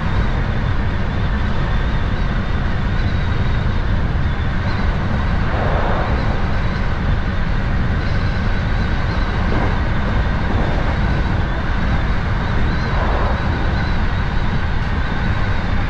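Hankyu 7000 series electric commuter train running along the line, heard from inside the front cab: a steady heavy rumble of wheels on rail with a thin steady whine above it, swelling briefly a few times.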